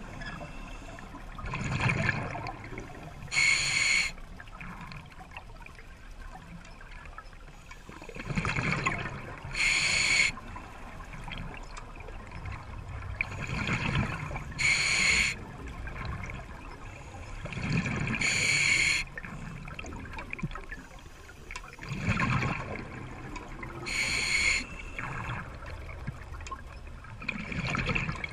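Scuba diver breathing through an open-circuit regulator underwater: each breath is a short whistling hiss of air on the inhale and a rumbling burst of exhaust bubbles on the exhale, about one breath every five to six seconds.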